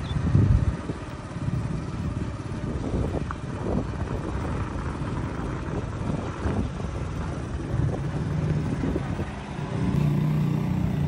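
Small motorcycle engine running while riding along a street, a continuous low chugging rumble that settles into a steadier, even hum near the end.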